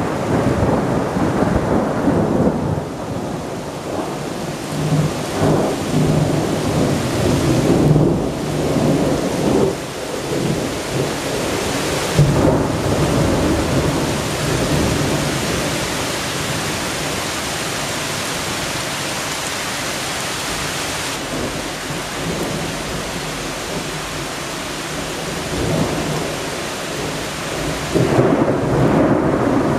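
Thunder rumbling over steady rain in a strong thunderstorm. The rumbling swells and fades several times, with a sharp crack about twelve seconds in and a loud rumble again near the end.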